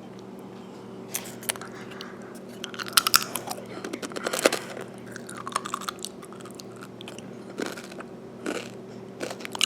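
Tortilla chips being bitten and chewed, with irregular loud crunches, a cluster about three to four and a half seconds in. A steady low hum runs beneath.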